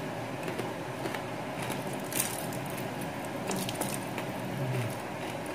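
A few light knocks and clatters of a kitchen knife and pieces of crispy fried pork being handled on a wooden cutting board, the sharpest about two seconds in, over steady room noise.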